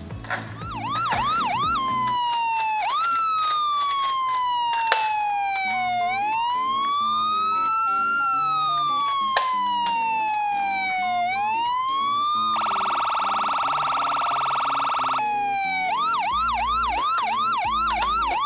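Electronic siren of a toy miniature ambulance cycling through its patterns: a fast yelp of quick rising chirps, then long slow wails falling and rising in pitch, a buzzing horn-like tone for a couple of seconds, and the fast yelp again near the end. Two sharp clicks sound during the wails.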